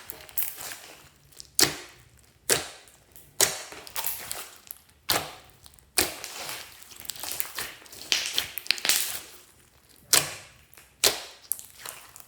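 Glossy slime being kneaded and pressed by hand: an irregular series of sharp pops and clicks from trapped air, each trailing off in a short sticky crackle.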